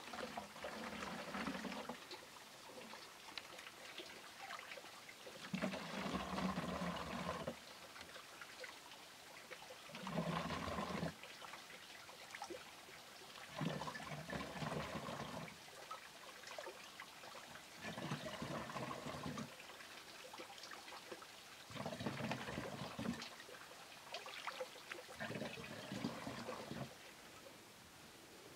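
Water poured by hand from a steel bowl into a plastic jerrycan, seven separate pours, each lasting one to two seconds, spaced about four seconds apart.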